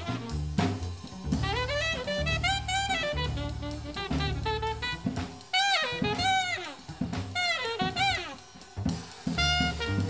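Jazz music with a saxophone melody of sliding notes over bass and drum kit.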